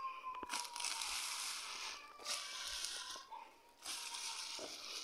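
Hand hoe chopping and scraping through grass, weeds and dry soil: three rough stretches of rustling, tearing strokes.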